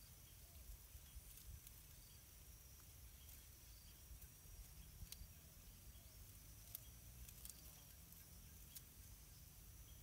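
Near silence: faint outdoor ambience with a thin steady high tone and a few soft clicks.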